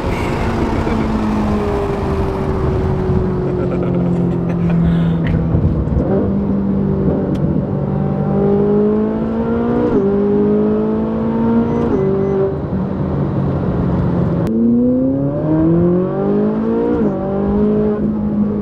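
Ferrari 458 Italia's naturally aspirated V8 through an iPE exhaust, heard from inside the cabin while accelerating: the revs climb and the pitch drops suddenly at several quick upshifts.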